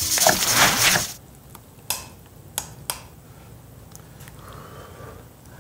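A brief noisy transition sound effect for about the first second, then three light clinks of a metal spoon against a ceramic bowl of gukbap as it is scooped.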